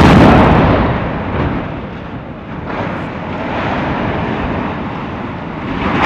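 Explosive demolition charges going off in a sharp, loud blast, followed by a long rumble of the steel-framed industrial plant building toppling and collapsing. The noise swells again near the end as the structure comes down onto the ground.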